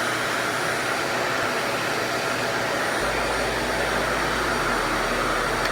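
RevAir reverse-air hair dryer running steadily, its suction drawing a section of hair into the tube: a steady rush of air with a thin high whine.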